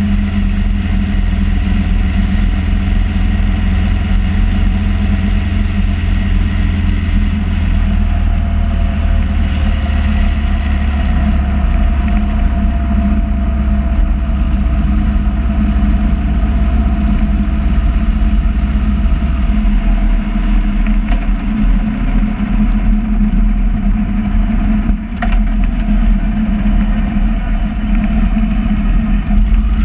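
Motorcycle engine running at a steady cruise, heard from a camera mounted on the bike, with wind rushing over the microphone; the engine note shifts slightly about two thirds of the way through.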